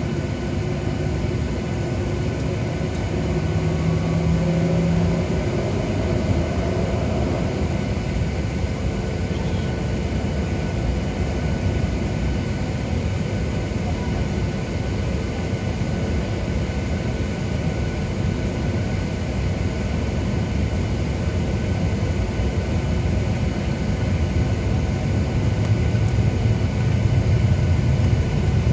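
Cabin noise of a Southwest Airlines Boeing 737 taxiing: the jet engines' steady hum and rumble heard from inside the cabin, growing a little louder near the end.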